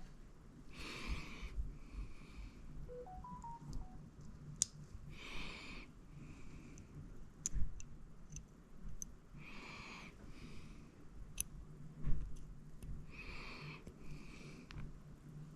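Breathing close to the microphone, a hissing intake and a shorter breath out about every four seconds, with scattered small sharp clicks from handling tool parts. A short three-note rising tone sounds about three seconds in.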